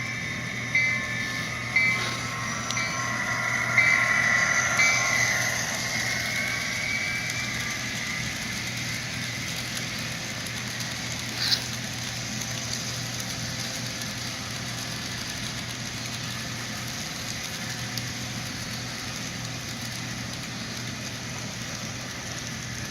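Onboard sound system of a Walthers HO-scale Norfolk Southern EMD SD60M model locomotive playing diesel locomotive sounds through its small speaker. Short repeated tones sound about once a second for the first few seconds, then the engine sound runs steadily with a low hum, broken once by a sharp click.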